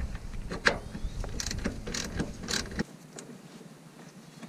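Hand tools working a fender bolt loose on a truck body: scattered, irregular clicks and knocks, with a low rumble that stops about two thirds of the way through.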